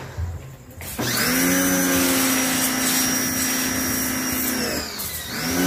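Electric pressure washer (jet wash) motor and pump starting about a second in with a quick rising whine, running steadily for a few seconds, then winding down and starting again near the end. The trigger on the spray gun is being let go and pressed again, so the machine keeps stopping and starting.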